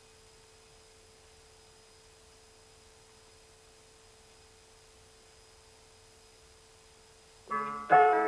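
A faint steady tone holding one mid pitch over near silence, then, near the end, music of plucked-sounding notes starts up suddenly and is much louder.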